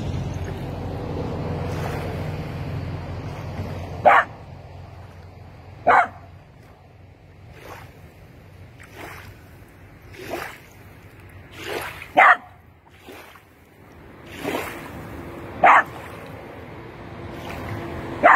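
A dog barking: five sharp single barks a couple of seconds apart, with fainter calls in between.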